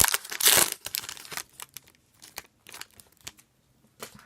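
A hockey card pack's wrapper being torn open and crinkled, loud for about the first second, followed by a few light clicks and rustles as the pack is handled.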